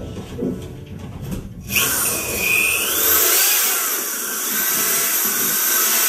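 Corded electric drill with a mixing paddle starts up a little under two seconds in, with a brief rising whine as it speeds up, then runs steadily, whipping alginate and water in a bucket. Faint handling clatter comes before it.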